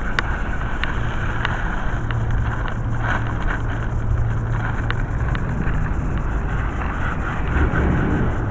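Steady outdoor noise of wind buffeting the microphone over the low hum of distant city traffic, with a few sharp clicks scattered through it.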